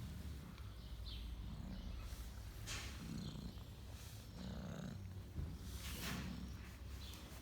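Domestic cat purring while being scratched, the purr swelling and fading with each breath about every second and a half. Two short breathy sniffs stand out above it.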